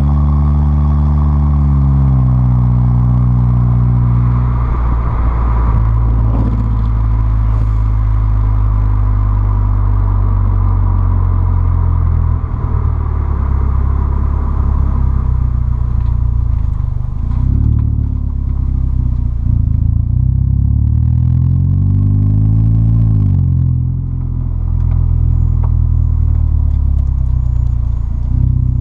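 2010 Ford Fusion's 2.5-litre four-cylinder engine running through a custom exhaust, heard at the tailpipes while driving. Revs climb in the first couple of seconds, the car then cruises, and from about 17 seconds in it pulls up through the revs again until a gear change drops the pitch near 24 seconds.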